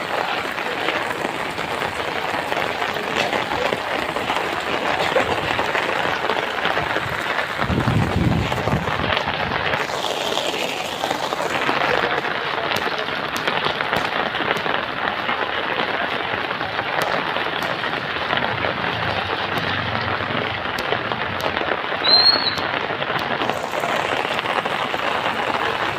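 Steady heavy rain falling, an even hiss throughout, with a brief high chirp about three-quarters of the way through.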